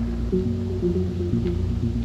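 Background music: a slow synth piece with low held notes that change step by step.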